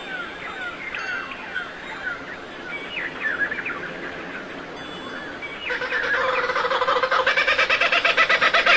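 Small birds chirping in quick, short, falling notes. About six seconds in, a louder fowl call with a steady pitch and a very fast pulsing comes in and grows louder.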